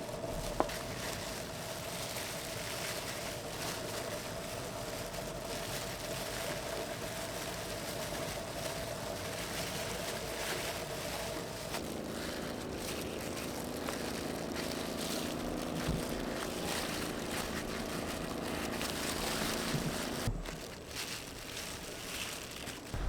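A steady motor hum over a rushing wash of noise. The pitch steps down to a lower hum about halfway, and near the end the hum drops away.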